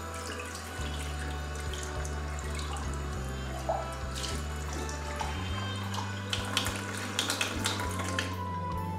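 Kitchen tap running into a sink while a ceramic dish and mug are rinsed under the stream, with a few light clinks of the crockery. The water stops near the end. Soft background music with a low bass line plays throughout.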